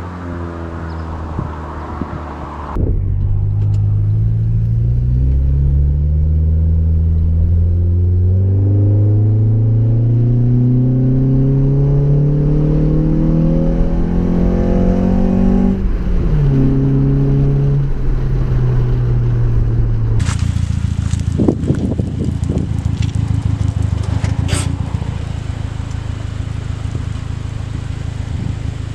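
2008 Honda Accord Coupe's 2.4-litre four-cylinder, breathing through a MagnaFlow muffler with the resonator deleted, accelerating under load: the exhaust note climbs steadily in pitch for about 13 seconds, drops sharply at an upshift, then runs at a steady cruise with a lower drone and some clicks over it.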